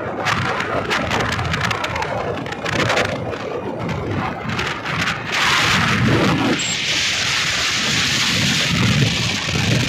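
Steady rushing noise of falling water, crackly at first and becoming a fuller, even hiss about halfway through.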